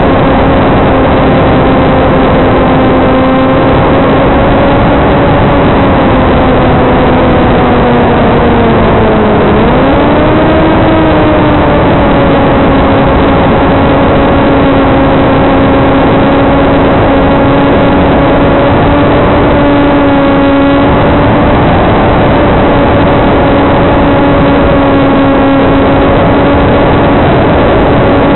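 Electric motor and propeller of a TBS Caipirinha II FPV flying wing running in flight, a steady hum that sags in pitch about nine seconds in and then swings quickly back up with the throttle. The sound is thin and cut off at the top, as carried by the onboard video link.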